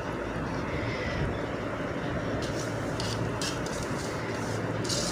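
Metal spoon stirring and scraping semolina as it roasts in oil in a large aluminium pot, in a run of short strokes over the second half, over a steady rushing background noise with a low hum.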